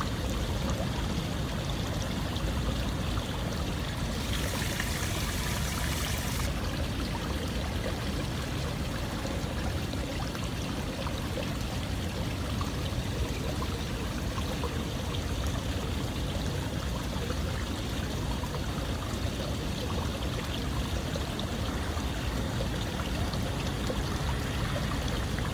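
Running water with a steady rush and trickle, like a stream. About four seconds in a brighter hiss rises for a couple of seconds, then settles back.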